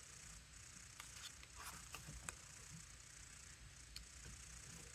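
Near silence with a faint hiss, broken by a few soft, brief taps and slides of tarot cards being handled and laid down, a cluster in the first half and one more near the end.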